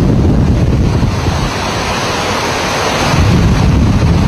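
Hurricane-force wind buffeting the microphone with driving rain over storm-surge water: a loud, unbroken rush with a heavy low rumble, the hiss swelling about two to three seconds in.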